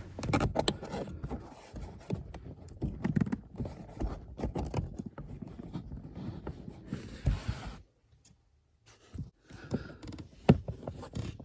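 Plastic car interior trim being handled and fitted back into place: scraping, rattling and a string of sharp plastic clicks and knocks, broken by about a second of dead silence about two-thirds of the way through.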